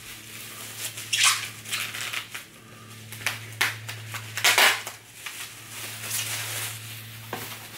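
Plastic bubble wrap crinkling and crackling in irregular bursts as it is pulled off a framed picture.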